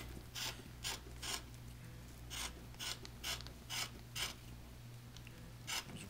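Scissors snipping through epoxy-wetted carbon fiber cloth, a string of short cuts about two a second, trimming the cloth edge to a straight line.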